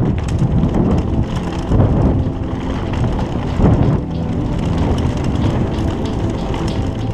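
Wind buffeting the bike-mounted camera's microphone over the rumble of mountain-bike tyres rolling downhill on grass and gravel, with scattered sharp clicks and rattles from the bike.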